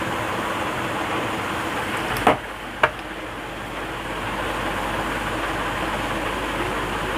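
Steady mechanical whirring noise, with two sharp clicks about half a second apart a couple of seconds in.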